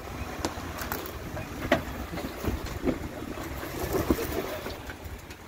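Off-road 4x4 vehicle crawling over a rocky trail: a steady low engine and drivetrain rumble with several sharp knocks and clunks scattered through it.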